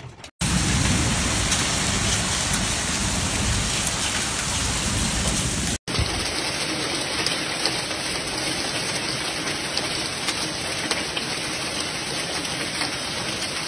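Heavy downpour of rain and hail, a dense steady hiss. About six seconds in it cuts abruptly to a second downpour. The first stretch carries a deeper rumble and the second is thinner, with scattered ticks of hailstones striking.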